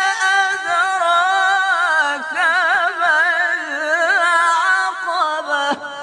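A man's voice reciting the Quran in melodic tajweed style, drawing out one long ornamented phrase on a single breath, its pitch wavering in quick trills. The voice breaks off abruptly near the end.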